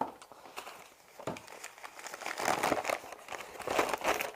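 Newspaper packing being handled: irregular crinkling and rustling that gets busier and louder after about a second.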